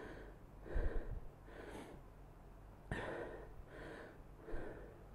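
A man breathing hard through the mouth while recovering from heavy exertion: about five deep breaths, roughly one a second.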